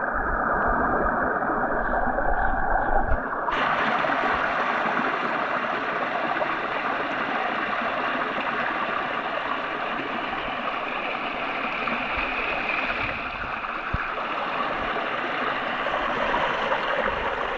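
Creek water running steadily over a small waterfall, a constant rushing. It is muffled for the first three seconds or so, then clear.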